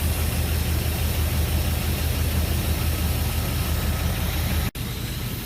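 Jeep Grand Cherokee engine idling steadily while it warms up after a rebuild with new connecting rod bearings. It is still a little rattly, which the owner puts down to a bit of tappet noise. The sound cuts out for an instant near the end.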